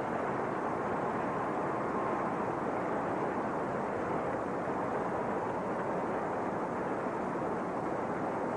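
Large arena crowd applauding and cheering steadily.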